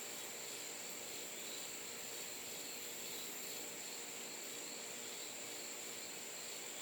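Insects trilling in a steady, continuous high-pitched chorus over faint outdoor background noise.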